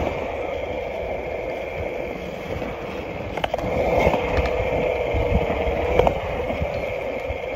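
Skateboard wheels rolling steadily over skatepark concrete, a continuous rumble with a hum, and two sharp clicks, one about three and a half seconds in and one near six seconds.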